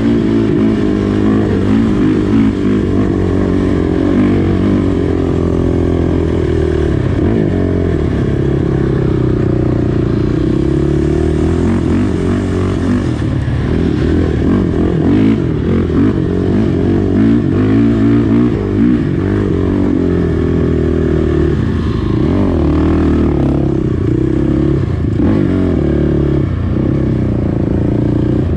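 Honda TRX450R sport quad's single-cylinder four-stroke engine running hard under changing throttle while riding, its pitch repeatedly rising and falling as it revs up and backs off.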